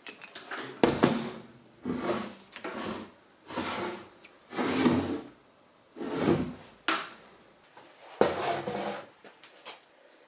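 A car air-conditioning compressor and other heavy parts being set down and shifted on a steel workbench top: a series of about eight knocks and scrapes, a second or so apart.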